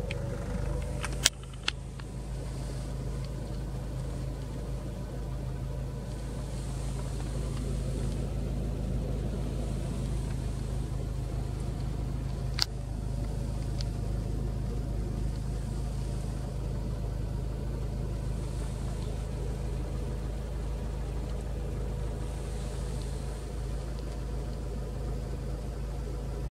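Honda EK9 Civic Type R's 1.6-litre B16B four-cylinder, fitted with a Fujitsubo exhaust manifold and muffler, idling steadily, heard from inside the cabin. A few sharp clicks come about a second in and again near the middle.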